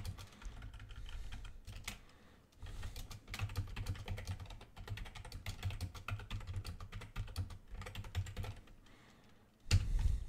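Typing on a computer keyboard: quick runs of key clicks with a couple of short pauses, and a louder thump near the end.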